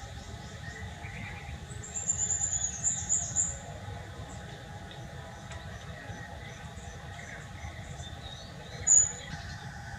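High-pitched squeaky animal chirps: a quick run of chirps about two seconds in and one short, sharp chirp near the end, over a faint steady low hum.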